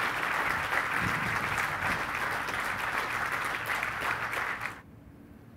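Audience applauding, cut off abruptly near the end.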